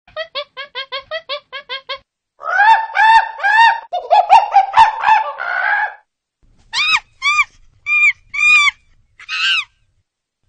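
A series of loud, bird-like calls. About a dozen short, quick calls come first, then a dense run of overlapping calls, then five separate rising-and-falling calls spaced about half a second apart.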